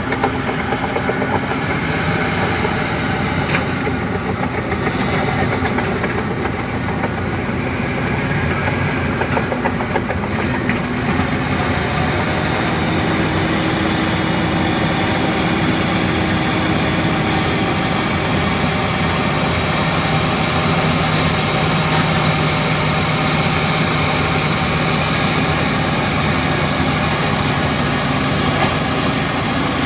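Komatsu D65 bulldozer's diesel engine running steadily under work, with a few faint high squeals in the first ten seconds.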